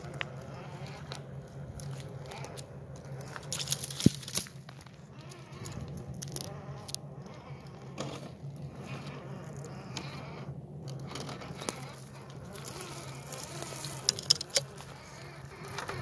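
Electric motor and drivetrain of an Axial SCX10 II Deadbolt RC rock crawler humming steadily as its tires crawl over rocks, with scattered clicks and knocks of rock under the wheels. The sharpest knock comes about four seconds in.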